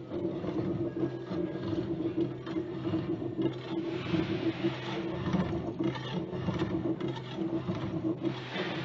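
Steel-cutting machine running with a steady hum, with irregular scraping and rubbing as a steel bar moves through it.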